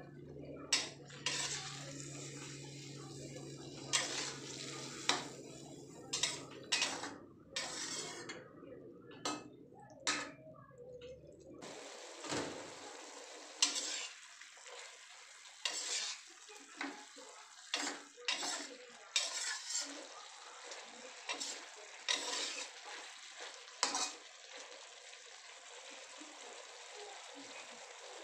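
Metal spatula scraping and clinking against a stainless steel wok as long beans are stir-fried, in repeated strokes about once a second. A low hum underneath stops about twelve seconds in.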